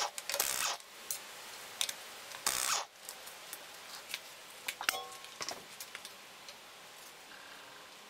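Pneumatic impact wrench run in two short bursts, undoing a car's wheel bolts, followed by light metallic clinks as the loosened bolts are handled.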